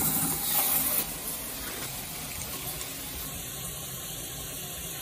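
Running water: a steady rushing hiss, louder for about the first second and then settling to an even level.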